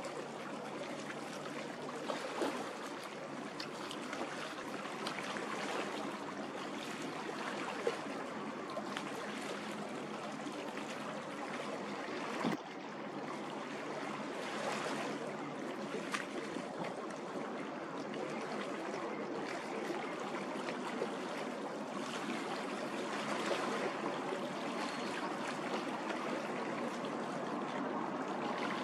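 Steady rush and trickle of water, the wash of a passing warship's bow wave and wake.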